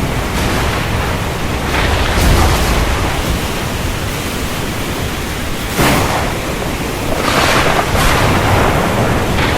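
Thunderstorm: a steady, dense rushing noise over a deep low rumble, with sudden louder surges about two seconds in, near six seconds, and again around seven and eight seconds.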